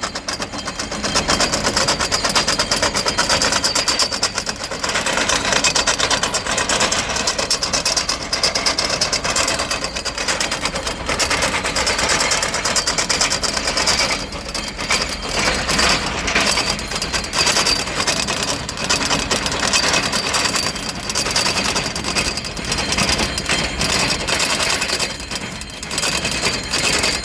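John Deere 5210 tractor's diesel engine working under load while drilling into soil, with a fast, steady mechanical clatter.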